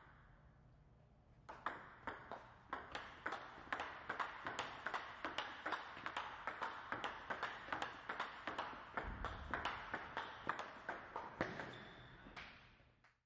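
Table tennis rally: a celluloid-type ball struck by a bat faced with Butterfly Dignics 64 rubber and bouncing on the table, an even run of sharp pock clicks about three a second. It starts about a second and a half in and fades away near the end.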